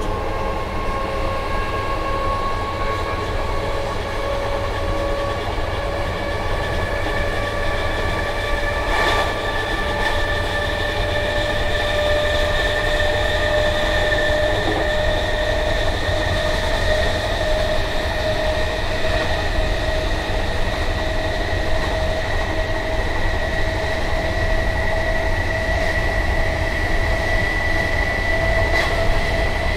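Class 319 electric multiple unit heard from inside its motor coach: the traction motors whine in several tones that rise slowly in pitch as the train gathers speed, over a steady running rumble. A couple of faint knocks from the wheels come about nine seconds in and near the end.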